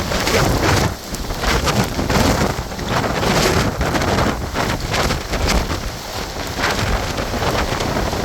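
Hurricane wind and heavy rain, with gusts buffeting the microphone in uneven, rumbling surges.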